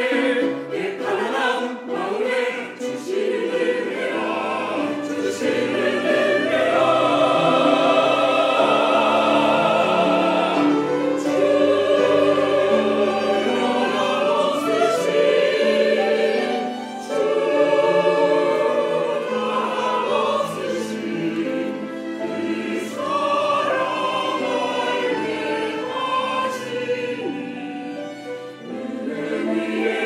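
Mixed church choir singing a sacred anthem in sustained chords, accompanied by piano and violins.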